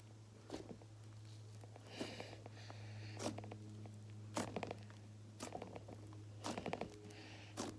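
Clay slime being squeezed and stretched by hand to make bubbles, with scattered sticky clicks and small pops every second or so as air pockets in the slime burst.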